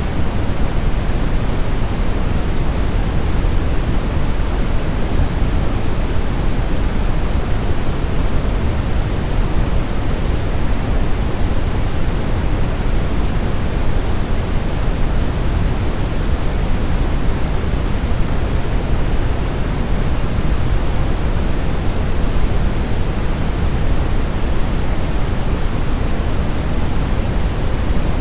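Steady brown noise: an even, unchanging rushing hiss with most of its weight in the low end.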